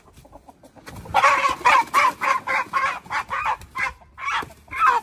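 A chicken squawking loudly and repeatedly in alarm as it is grabbed by hand, starting about a second in, at roughly three or four squawks a second.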